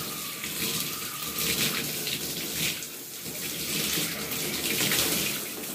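Water running from a faucet and splashing unevenly as hair is rinsed under it.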